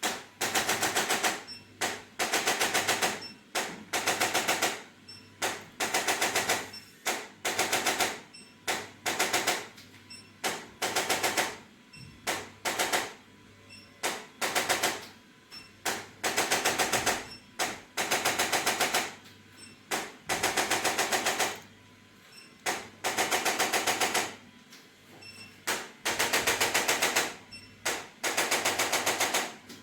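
Bursts of rapid mechanical clicking, each about a second long with roughly ten clicks a second, starting and stopping over and over with short gaps between.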